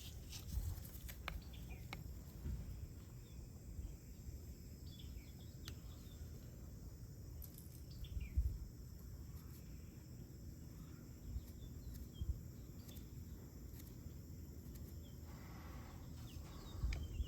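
Faint bird chirps over a low steady background rumble, with a few light knocks, the loudest about eight seconds in.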